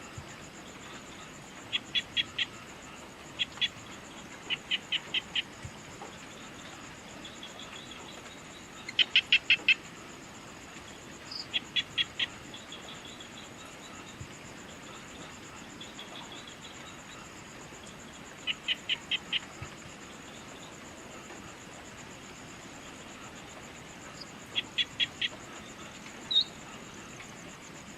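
Evening nature ambience: a steady, high-pitched insect drone runs underneath. Over it, a bird calls in short bursts of four to six quick notes, repeated every few seconds, with the loudest burst about nine seconds in.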